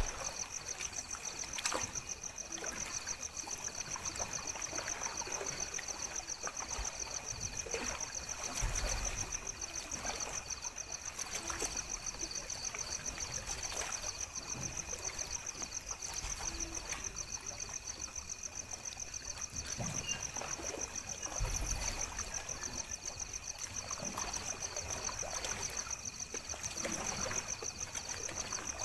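Small waves lapping at a lakeshore at night, under a steady, high, rapidly pulsing chorus of night insects, with a few soft knocks.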